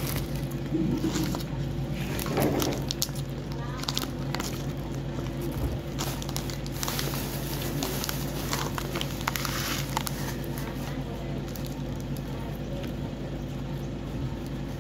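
Eating sounds from sticky rice and larb picked up and eaten by hand: scattered small clicks and plastic-bag crinkles from a bag of sato beans being handled. A steady low hum runs underneath.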